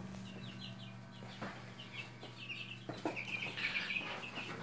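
Young chicks peeping in quick runs of short high notes, growing busier in the second half, over a steady low hum from running egg incubators.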